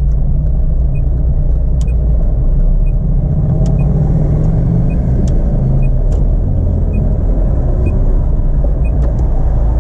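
Car engine and road noise heard from inside the cabin while driving slowly: a steady low rumble, with a faint regular ticking about once a second.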